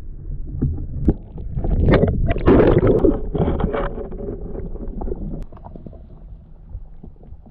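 Water churning and bubbling, heard muffled through an underwater camera, as a released northern pike kicks off and swims away. The splashing is loudest about two seconds in, with a few sharp clicks, then settles back to a low rumble.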